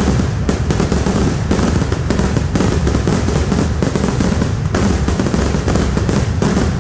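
Kerala temple fireworks (vedikettu) in full barrage: loud, rapid firecracker blasts so close together that they merge into one continuous rattling roll.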